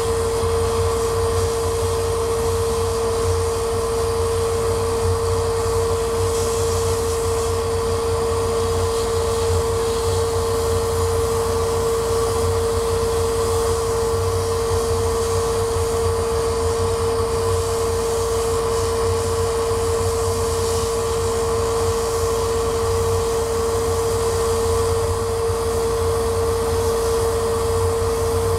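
Laser cutter running as it cuts a wooden sheet: a steady whirring hum with one constant droning tone that never changes.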